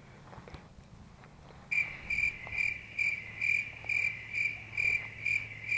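Cricket chirping in a steady rhythm, about two chirps a second, starting suddenly nearly two seconds in.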